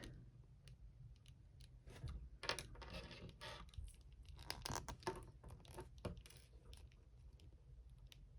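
Faint clicks and scrapes of small plastic action-figure parts, a swappable hand being handled and fitted, mostly between about two and six seconds in.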